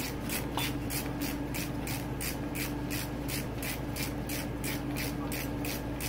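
Ratchet wrench clicking as it is swung rapidly back and forth to run a bolt down at the top of a motorcycle front fork, a steady rhythm of about four clicks a second.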